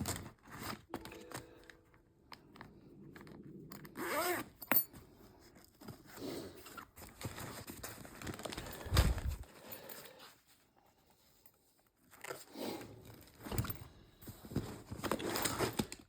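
Handling noise from a canvas tool bag being turned over and inspected: rustling and scraping of fabric and straps, with a low thump about nine seconds in.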